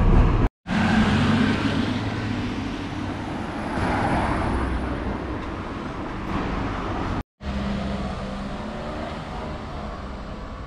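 Road traffic: cars driving past on a street, with one louder pass swelling about four seconds in. The sound cuts out abruptly for a moment twice.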